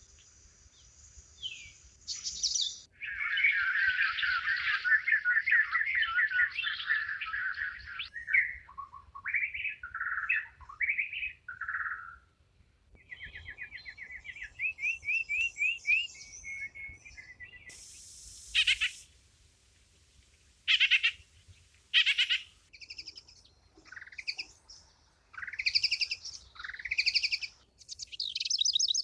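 Birds calling and singing in a string of different calls. A long, fast trill starts a few seconds in and lasts about five seconds, followed by short chirps, quick runs of notes and brief rising whistles.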